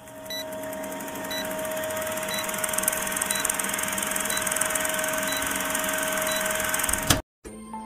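Sound effect for an old film countdown leader: a steady projector-style whir and hum with a short high beep about once a second. It ends with a click and an abrupt cut about seven seconds in, and soft music begins just before the end.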